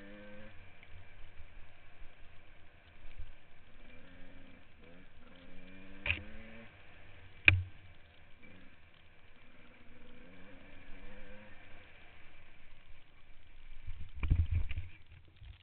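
Dirt bike engine revving up and down in bursts on a rough trail, with sharp knocks from bumps. About 14 seconds in come heavy thumps as the bike goes down after hard braking, and the engine falls quiet.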